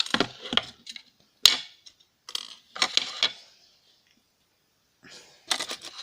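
Hard plastic alarm-clock parts being handled and pried apart: scattered clicks and rattles, with one sharp click about a second and a half in and a short quiet spell before more clicking near the end.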